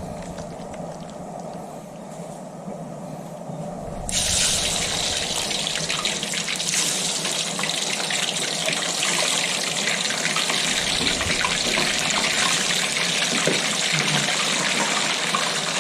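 Kitchen tap turned on about four seconds in, then water running steadily into a sink.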